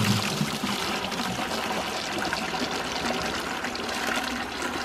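Water pouring steadily from the outlet pipe of a 55-gallon silt-catchment barrel into a plastic 5-gallon bucket as it fills. It is a timed bucket-fill test of a micro hydro intake's flow, which comes out at about 13.6 gallons per minute.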